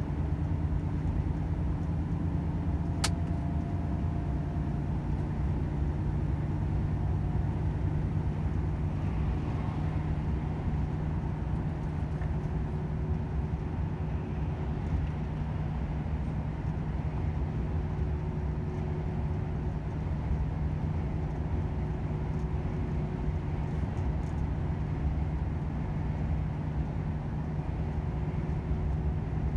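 Volvo FH 500 truck's 13-litre straight-six diesel running steadily under road noise: a low, even drone. A single sharp click about three seconds in.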